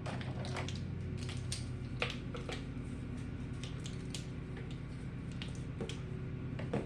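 Light, irregular clicks and taps of a spice container and measuring spoon as garlic powder is shaken out of a nearly empty container, over a steady low hum.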